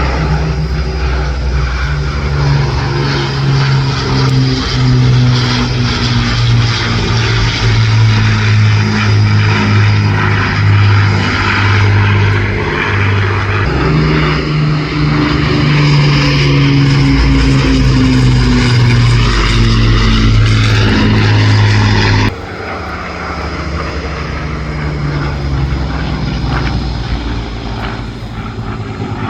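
Propeller-driven piston-engined warbirds flying past, their engines droning loudly, with the pitch sliding down in the second half as they pass. About two-thirds of the way through the sound drops abruptly to a quieter, more distant engine drone.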